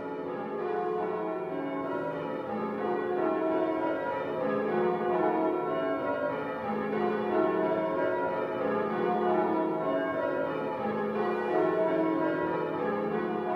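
The bells of St Mary's Church, Uffington, in English change ringing: many bells struck one after another, their tones overlapping.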